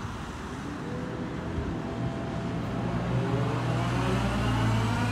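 A road vehicle's engine speeding up, its pitch rising gradually as it grows louder toward the end.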